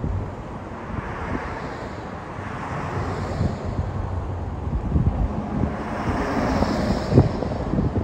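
Vehicle engines running by the roadside, with wind buffeting the microphone in a low rumble, and a short knock about seven seconds in.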